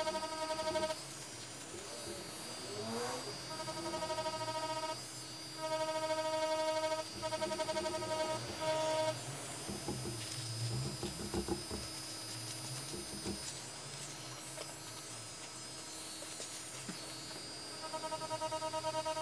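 DragonHawk Mast Archer wireless rotary tattoo machine buzzing in short runs of a second or two as the needle works into fake skin. It falls quiet for several seconds in the middle while a paper towel is rubbed over the skin, then buzzes steadily again near the end.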